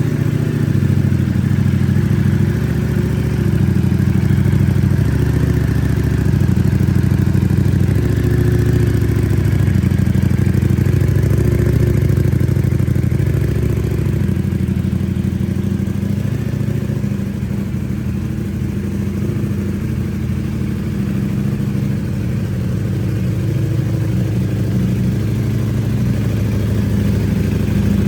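2022 Ducati Panigale V4S's V4 engine idling steadily through a Termignoni exhaust with the dB killer inserted; low and even, with no revving.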